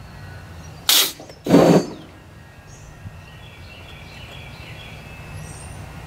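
Two short blasts of compressed air from a blow gun, blown back through a diesel tractor's fuel line to clear a clog toward the fuel tank: a sharp hiss about a second in, then a louder, lower rush half a second later.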